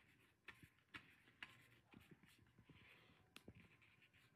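Near silence with a few faint, light clicks of a hand handling a DVD disc in its plastic case.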